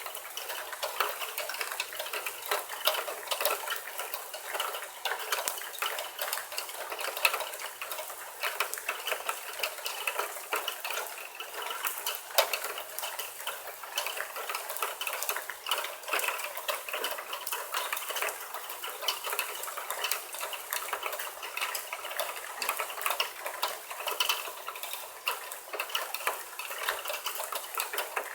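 Rain falling hard: a dense, irregular spatter of drops, with clicking taps of water hitting gutters and hard surfaces.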